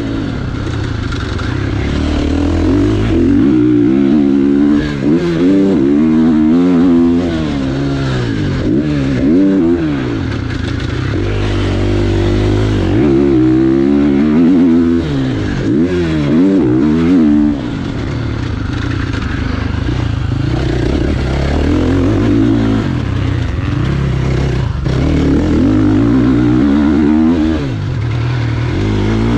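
2023 KTM 450 SX-F's single-cylinder four-stroke engine at race pace, heard from the rider's helmet camera, revving up and dropping back over and over as the throttle is opened and shut.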